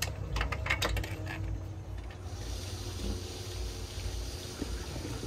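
Water running steadily at an RV dump station, starting about two seconds in after a few clicks and knocks, over a low rumble.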